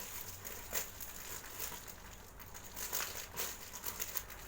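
Irregular crinkling and rustling from squishy toys and their packaging being handled and sorted through, a string of small crackles and clicks.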